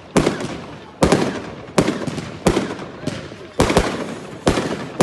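Fireworks going off in a firing sequence: about seven sharp bangs, roughly one a second with two close together past the middle, each fading away over most of a second.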